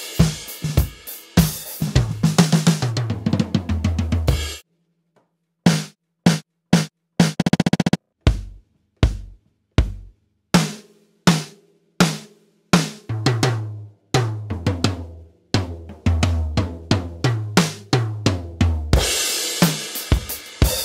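1970s Tama Imperialstar drum kit with a low-tuned, muffled stainless-steel snare, close-miked and gated for a dry 1970s sound. A busy groove stops dead about four seconds in, then single hits fall with silence between them, a fast roll follows, and tom fills with cymbal crashes build toward the end.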